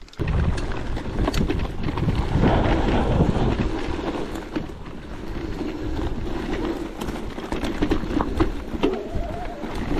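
Wind buffeting the microphone over the rumble and clatter of an electric mountain bike riding fast over rough trail, with frequent small knocks and rattles from the bike.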